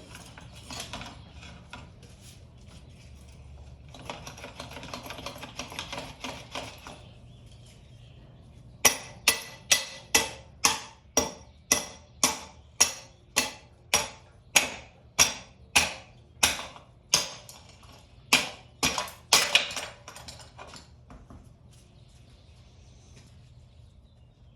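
Hand ratchet clicking in quick runs on a dirt-bike bolt, followed by about eighteen loud, sharp metal strikes in a steady rhythm, each with a short ring.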